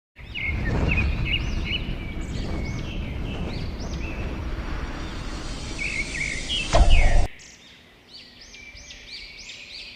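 Caged parrots, most likely cockatiels, chirping over and over with short shrill calls. A loud rushing noise runs underneath with a sharp knock near the seven-second mark, then cuts off, and the calls carry on more quietly.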